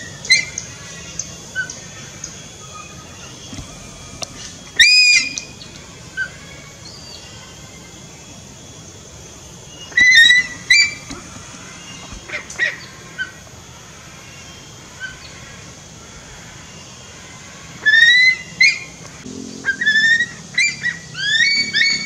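Eagle giving shrill, sharply rising whistled calls in short bouts: a single call or a pair every few seconds, then a quicker run of calls near the end.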